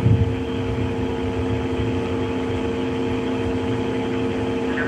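Steady rushing noise with a constant low hum on the Soyuz TMA-10M's onboard cabin audio feed, during the third-stage engine burn.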